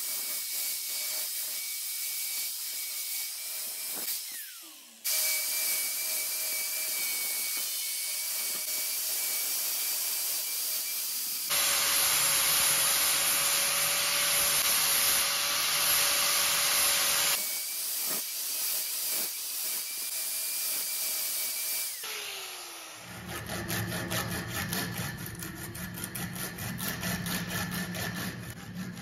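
Angle grinder grinding a steel file, a steady grinding noise with a faint whine, cut into several takes. From about 23 seconds in, a strip of abrasive cloth is pulled rapidly back and forth around the file, making a rhythmic rubbing sound.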